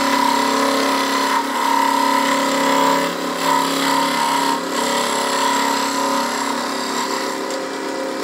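Bench scroll saw running steadily, its blade cutting through a melamine board, with a constant motor hum and a high whine.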